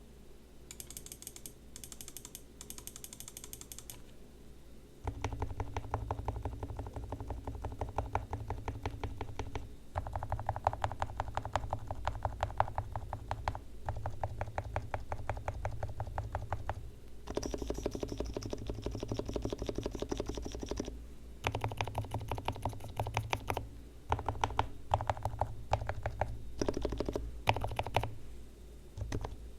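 Leopold FC660C silent Topre keyboard, fully lubed with Krytox, being typed on fast in runs of several seconds with short pauses. It opens with a few seconds of lighter, sparser keystrokes.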